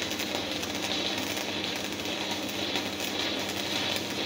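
Stick (shielded metal arc) welding: the electrode's arc crackling steadily as a straight-line bead is run, from a portable arc welding machine set to 90 amps, with a steady low hum underneath.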